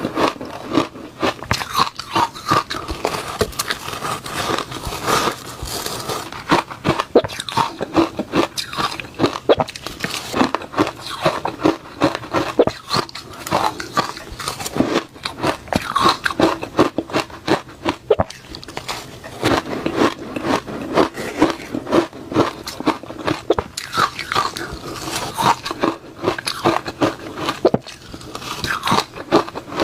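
Close-up crunching and chewing of reshaved freezer ice: dense, irregular crackles as the ice is bitten and ground between the teeth.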